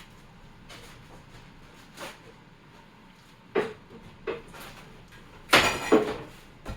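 Wooden boards of a nailed box knocking and scraping as they are worked apart: a few separate knocks, then a louder scraping crack about five and a half seconds in, and one more knock near the end.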